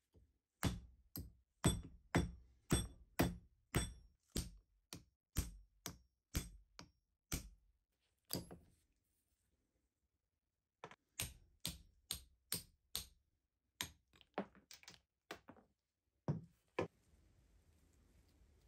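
Hammer blows on a steel punch driving packed debris out of the eye of a rusty axe head held in a vise: sharp, slightly ringing metallic strikes about two a second for some eight seconds. After a pause of about two seconds, another run of strikes follows, then a few last blows.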